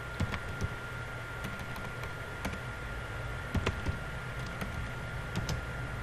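Keystrokes on a computer keyboard while code is typed: scattered clicks, singly and in short clusters with pauses between, over a steady low hum.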